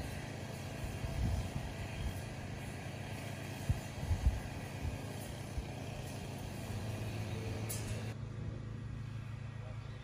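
Outdoor ambience: a steady low rumble of distant traffic, with a few soft thumps about four seconds in.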